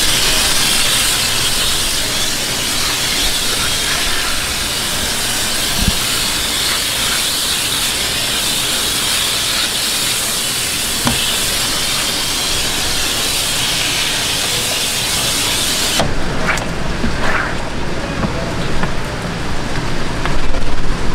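A high-pressure water hose nozzle sprays a yellowtail fillet on a cutting board, rinsing off the blood: a loud, steady hiss of spray. It cuts off suddenly about sixteen seconds in, followed by a few knocks and handling sounds.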